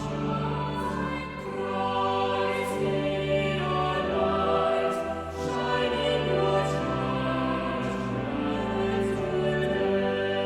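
A worship song: voices singing with instrumental accompaniment, held chords over a slowly changing bass line.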